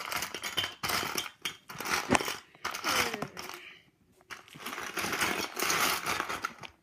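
Loose plastic Lego bricks clattering and rattling as hands rummage through a box of pieces, with many small clicks, briefly pausing about two-thirds of the way through.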